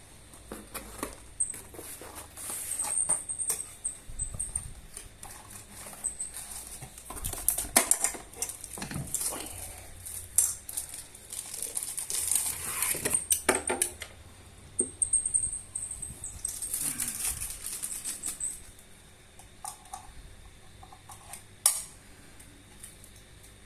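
Unboxing handling noise: packaging and parts being unwrapped and moved, with crinkly rustling and irregular clicks and knocks. A single sharp click near the end.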